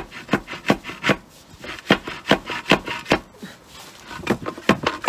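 A wooden ram driven again and again into a square steel tube packed with loose aluminium foil, to compress the foil into a block. It makes a quick run of knocks, about two to three a second, with a pause of about a second past the middle.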